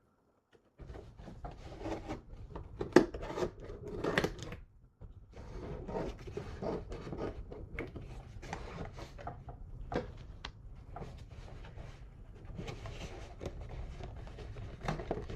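A package being opened and handled by hand: irregular rustling and scraping, with scattered sharp clicks and taps, one standing out about three seconds in.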